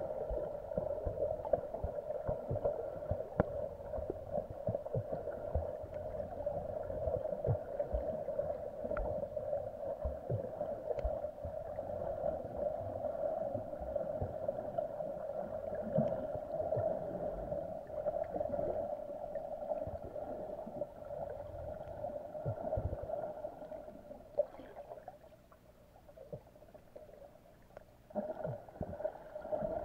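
Muffled underwater sound picked up by a camera held under the sea: a steady hum with low bumps and knocks from water movement. The hum fades for a few seconds near the end and then returns.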